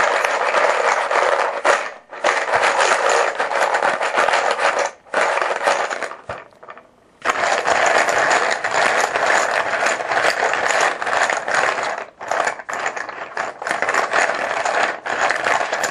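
Plastic poker chips clattering and rattling as they are stirred around in a bucket, in long stretches with short pauses about 2 seconds in and again from about 5 to 7 seconds in.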